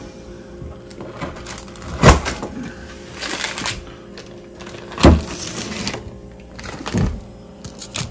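Hands working a lard-and-seed suet cake on parchment paper: rustling of paper and plastic bags, with a few sharp knocks against the counter, the loudest about two and five seconds in.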